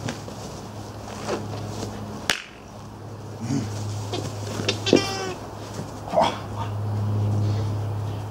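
A Belgian Malinois puppy crying out during rough play: a short, high-pitched cry that falls in pitch about five seconds in, among scuffling and a few sharp knocks, over a steady low hum.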